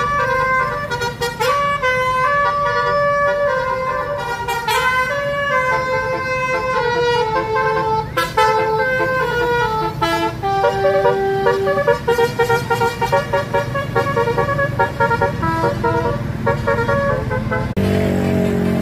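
Tour bus telolet basuri horn, a multi-trumpet musical horn, playing a melody of held and quickly changing notes over the bus's engine rumble. The melody cuts off suddenly near the end.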